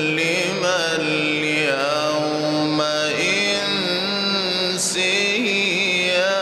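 A man reciting the Quran in the melodic mujawwad style. It is one long, ornamented phrase in a single breath, its pitch bending and wavering through the held notes.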